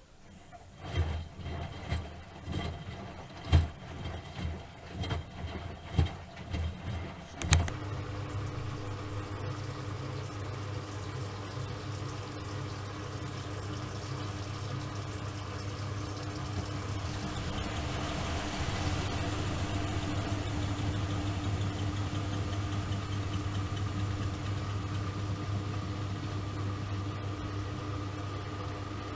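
Miele Softtronic W3923 front-loading washing machine running: a series of irregular thuds as the drum turns with the laundry, then from about a quarter of the way in a steady motor hum that swells a little in the middle.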